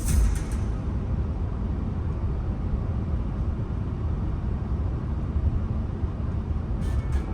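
Steady low rumble of road and engine noise from a 2011 Renault Samsung New SM3 driving along.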